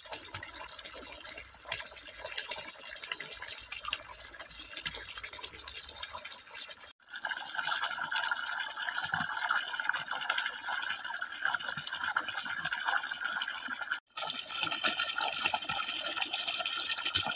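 Water from a DIY bucket pond filter's outlet pipe pouring in a steady stream and splashing into the pond's surface. The sound drops out briefly twice, about 7 and 14 seconds in.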